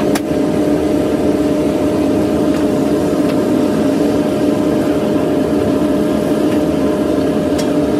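Steady mechanical drone of foundry machinery running, holding one constant tone throughout, with a couple of faint clicks.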